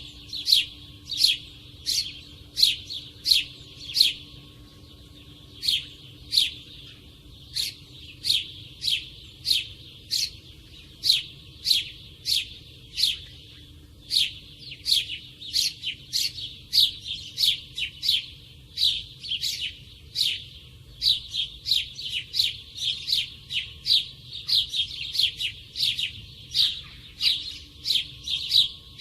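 Sparrow chirping: a long, steady run of short, sharp chirps, about two to three a second, with a couple of brief pauses.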